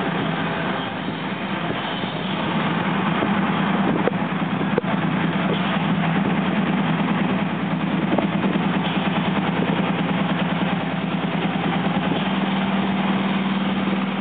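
A steady engine-like drone: a constant low hum with a noisy hiss over it.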